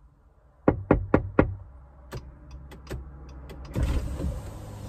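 Four quick knocks of a fist on a car's driver-side window glass, followed by a few lighter taps. About four seconds in, the power window motor starts whirring as the glass is lowered.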